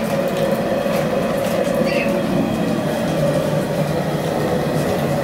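Steady rushing roar of a gas burner under a crawfish boil pot. Two faint short chirps sound at the start and again about two seconds in.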